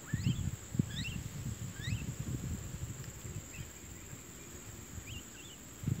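Jalak (mynas) giving short, quick rising and falling chirps, several in the first two seconds and a few more near the end, over a steady high whine and irregular low knocks and rumbling.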